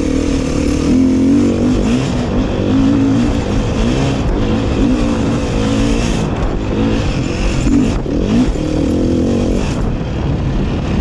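Beta RR 500 dirt bike's single-cylinder four-stroke engine running under way on a gravel trail, its pitch rising and falling as the throttle is worked.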